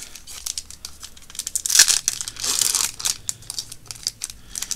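Foil booster-pack wrappers crinkling and rustling as trading-card packs and cards are handled, with louder tearing rustles about two and a half seconds in.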